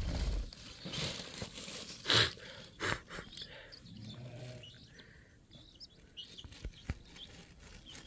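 Black francolin chicks pecking and scratching in loose soil, with scattered small rustles and clicks and a few faint short chirps. A louder rustle comes about two seconds in.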